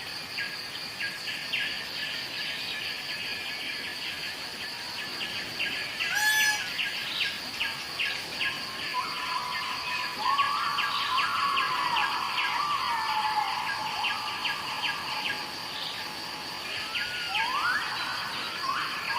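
A steady, shrill insect chorus with rapid bird chirping, and one short, loud peacock call about six seconds in. Gliding whistled notes come in from about nine seconds on.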